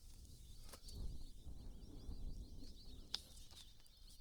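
Faint wetland ambience: a dense, steady chorus of small high-pitched chirps over a low rumble, with two sharp snaps, one just under a second in and a louder one about three seconds in.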